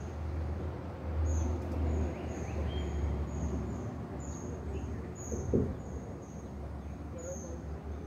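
Outdoor waterside ambience: short high-pitched chirps repeat about twice a second over a low wind rumble on the microphone. A brief thump comes about five and a half seconds in.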